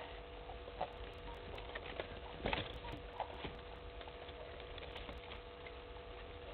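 Elephants drinking at a waterhole: faint, scattered drips and small splashes of water from their trunks, with a few louder splashes in the middle, over a steady faint hum.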